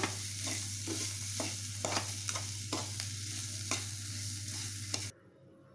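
Potato and onion masala sizzling in oil in a metal kadai while a ladle stirs and mashes it, the ladle knocking against the pan about twice a second over a steady low hum. The sound cuts off abruptly near the end.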